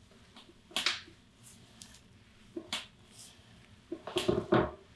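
Short rustles of hands and clothing moving over a patient's lower back during chiropractic palpation: three brief bursts, about a second in, near the middle, and a louder cluster near the end.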